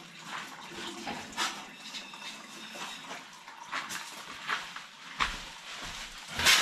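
Scattered light clicks and knocks of things being handled, with a sharper clatter near the end as a plate is taken out of a plastic bag.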